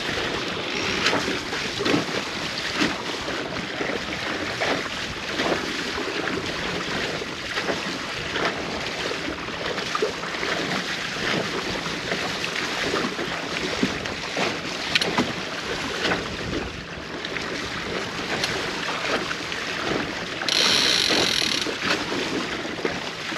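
Water splashing and rushing along the hull of a small sailboat moving through choppy water, with wind buffeting the microphone. A brief, louder rustle comes near the end.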